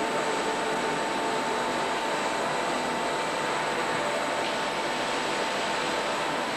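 Brick-factory machinery running steadily: an even mechanical noise with a few constant humming tones.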